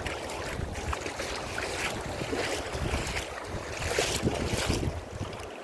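Wind rumbling on the phone's microphone over shallow creek water that splashes and laps, with a few brief louder splashes.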